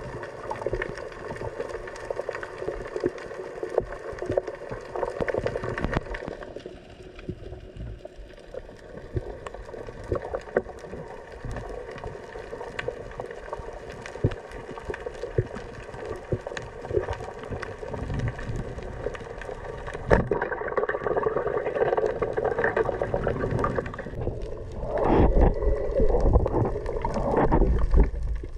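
Underwater sound heard through a diver's action camera: a steady wash of water and gurgling, peppered with small clicks. There is a single sharp knock about twenty seconds in, and louder rushing and sloshing water over the last few seconds.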